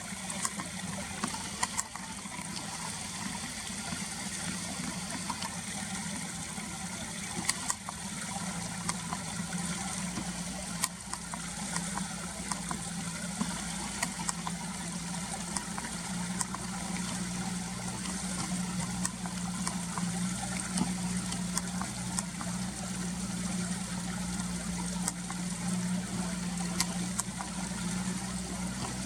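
Walk-behind tiller's small engine running steadily as a low hum, growing louder from about halfway through as it comes closer, with a few sharp clicks.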